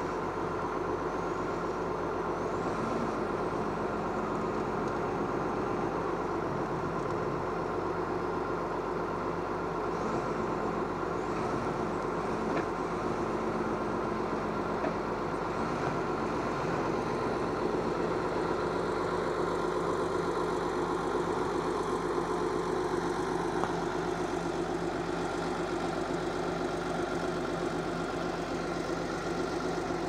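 Crawler bulldozer's diesel engine running steadily at a constant pitch.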